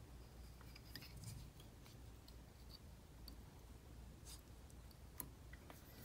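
Near silence: faint handling noises, a few light clicks and soft rustles of thread and materials on a jig held in a fly-tying vise, over a low steady room hum.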